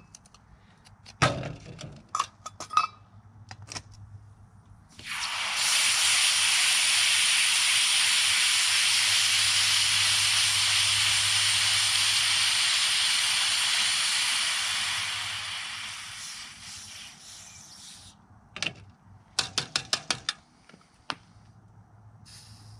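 Hot cast aluminium quenched in a bucket of water: a loud, steady hiss and sizzle of boiling water and steam that starts about five seconds in, holds for about ten seconds, then dies away. A few sharp clicks and ticks come before the hiss and again after it.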